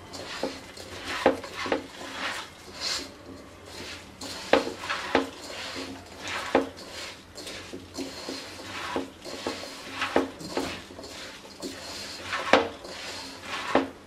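Hand mixing raw broken rice with chopped vegetables, spices and oil in a non-stick cooking pot: irregular knocks and clinks against the pot with a gritty rustle of the grains.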